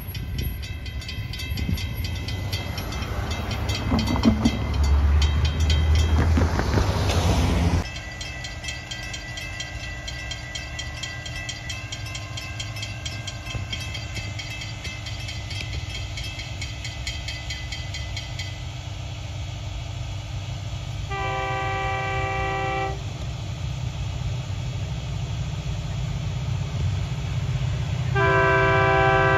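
Grade-crossing bell ringing with a low rumble, cut off abruptly about eight seconds in; then another crossing's bell rings and a Florida East Coast Railway locomotive horn sounds two long blasts, about 21 s and 28 s in, as the train approaches the crossing.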